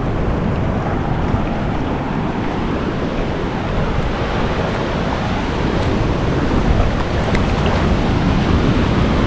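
Ocean surf washing through the shallows and breaking, a steady rush of water noise.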